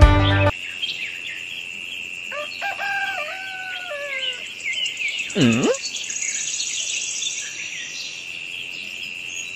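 Rural birdsong ambience: many short bird chirps over a steady high insect-like drone, with a longer call falling in steps about two and a half seconds in and a brief swooping call that dips and rises again about five and a half seconds in.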